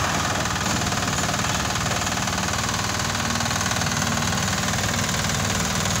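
Portable drum concrete mixer's small engine running steadily, turning the drum of freshly mixed concrete for a pour.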